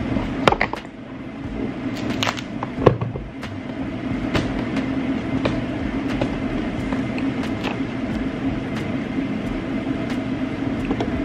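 A ribbed metal hard-shell suitcase being laid flat and opened: a few sharp knocks and clicks, the loudest about half a second and three seconds in, over a steady low hum.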